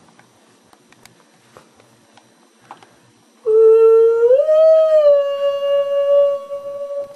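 A long howl starts about halfway through: one pitched tone that rises in pitch, then holds steady for about three seconds before stopping.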